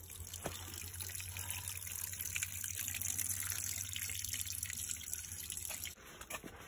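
Small stream of water trickling and splashing over rocks, heard close up as a steady hiss. It falls away suddenly near the end.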